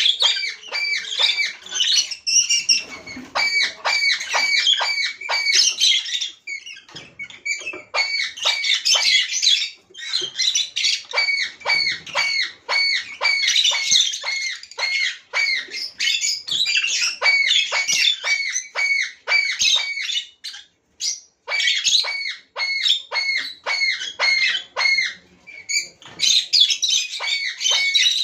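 A flock of pet lovebirds chattering with rapid, shrill squawks and chirps, many birds calling over one another in quick runs with brief lulls.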